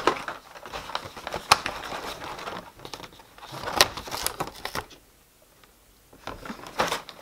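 Thin cardboard of an advent calendar door being pried and torn open by hand: crinkling and tearing with a few sharp clicks, the loudest about one and a half and four seconds in, then a quieter lull near the end.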